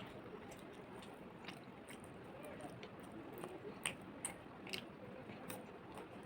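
A person chewing food close to the microphone, with wet mouth clicks and smacks. A few sharper clicks come between about four and five and a half seconds in.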